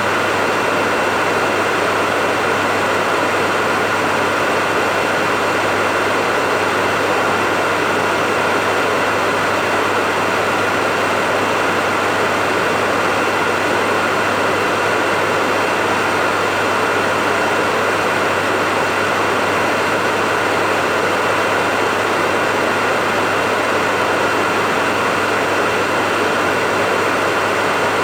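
Hair dryer running steadily: an even rush of blown air with a low motor hum and a faint high whine.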